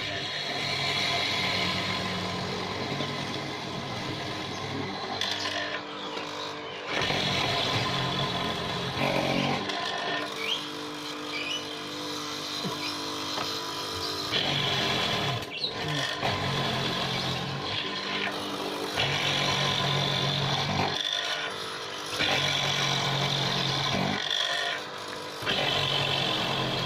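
Electric wood mortising machine running, its motor steady, growing louder for a second or two every few seconds.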